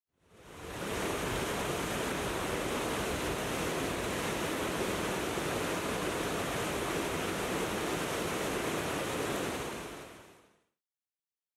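Steady rushing, water-like noise with no distinct events, fading in over the first second and fading out near the end.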